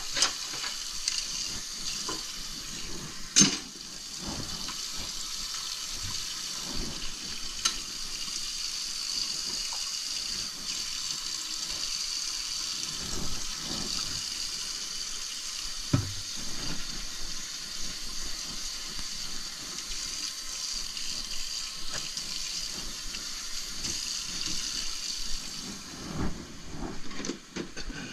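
Kitchen faucet running steadily into a stainless steel sink, a constant hiss of falling water, with a few sharp knocks about three and a half seconds and sixteen seconds in and some clattering near the end.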